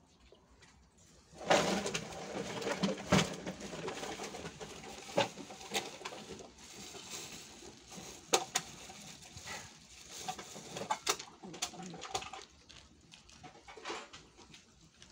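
Several cats eating wet food from a plastic bag: plastic crinkling and wet chewing with many small clicks, starting about a second and a half in and dying down near the end.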